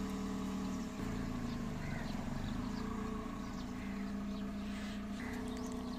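Toyota Corolla sedan's engine idling steadily while the car stands still.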